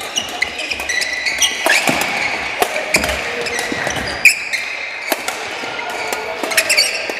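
Badminton rally: a quick run of sharp racket hits on the shuttlecock, the loudest about four seconds in, mixed with short squeaks of court shoes on the hall floor.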